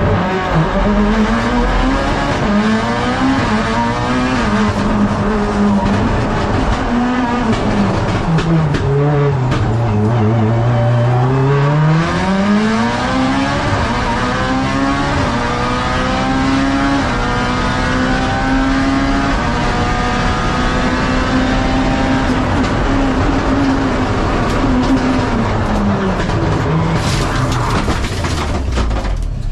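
Mitsubishi Lancer Evo X race car's turbocharged four-cylinder engine heard from inside the stripped cabin, pulling hard through the gears, its pitch climbing and dropping with each shift and falling low about ten seconds in as the car slows. Near the end a burst of rough noise as the car runs off the road into grass and hay bales in a crash.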